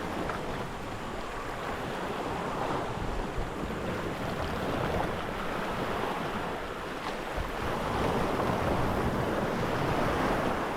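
Steady wind rumbling on the microphone over the wash of sea water around a boat.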